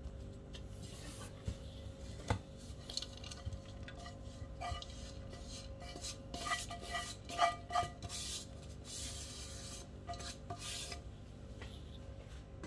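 A speckled enamel pot knocking and scraping against a metal pan as cooked rice is tipped and scraped out into it, with a few short ringing metal clinks in the middle and the rustle of the rice being spread.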